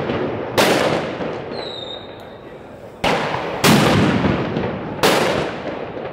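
Four loud firework bangs, about a second in, twice close together near the middle, and once more near the end, each followed by a long echoing decay.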